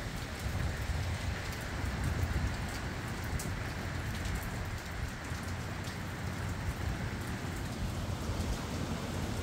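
Steady rain with scattered sharp drop ticks, while gusty wind buffets the microphone with a low, uneven rumble.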